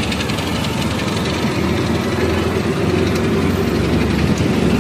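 Auto-rickshaw engine running steadily, heard from inside the open cabin as it moves through traffic, with road noise.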